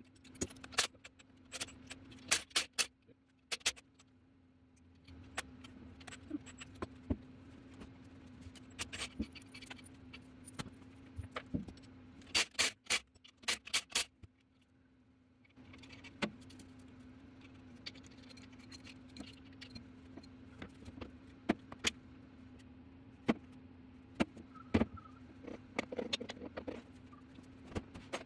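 Metal tools and parts clinking and scraping against a small-block Chevy engine block during teardown of the bottom end. The sharp clinks come in bunches near the start, about nine seconds in, and again around twelve to fourteen seconds, over a steady low hum.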